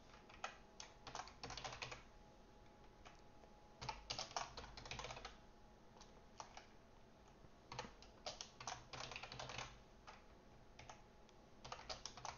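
Typing on a computer keyboard in four short bursts of rapid keystrokes, with pauses of about two seconds between them.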